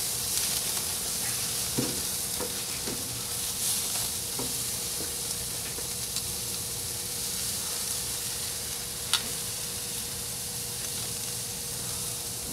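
Steaks and shrimp sizzling on a grill grate over hot coals, a steady hiss with a few faint clicks; the sharpest click comes about nine seconds in.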